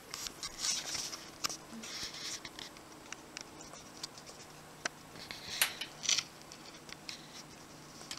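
Camera handling noise: scratchy rustles and scattered sharp clicks as the camera is moved about, over a faint steady hum.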